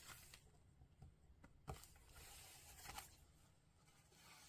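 Faint paper handling: a few light taps and rustles as paper border strips are pressed down and picked up, with a longer soft rustle, like paper tearing or peeling, between about two and three seconds in.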